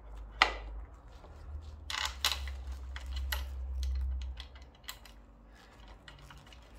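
Irregular small metal clicks and taps of a socket driver and bolts as the handlebar clamp bolts are started finger-tight by hand. The loudest click comes about half a second in, with a low rumble of handling underneath for the first few seconds.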